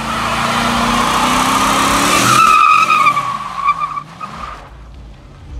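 Car tyres squealing in a burnout, a steady high screech over the engine revving up. Both fall away sharply about four seconds in as the car pulls off.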